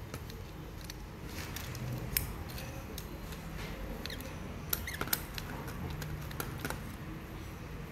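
Scattered small clicks and light scrapes of a digital caliper being slid open and closed on a red fiberglass fishing-rod butt section as it is repositioned for a diameter reading, with light handling noise.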